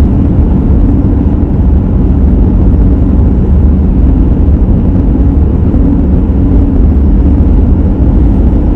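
Car's engine and road noise heard from inside the cabin while driving: a steady low rumble.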